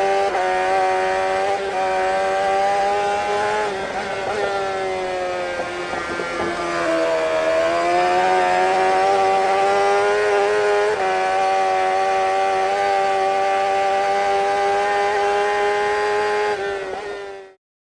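An engine running at high, fairly steady revs, its pitch sagging briefly about six seconds in and then climbing back, before the sound fades out quickly near the end.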